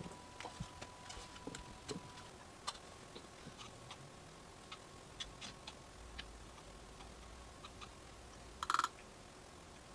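Scattered light clicks and taps at an uneven pace, over a faint steady high tone, with one short buzz a little before the end.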